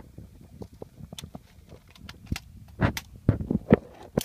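Clicks and knocks of an AR-15 rifle being picked up, carried and readied by hand, sparse at first and then several louder clacks close together in the second half.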